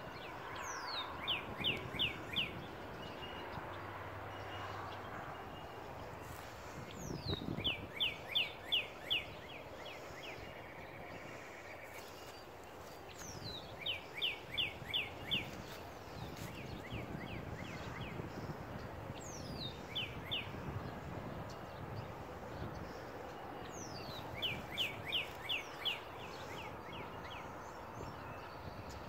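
A songbird singing the same short song five times, every five to six seconds: each song is a high falling whistle followed by a quick run of about five to seven clear notes. A steady outdoor background hiss runs underneath.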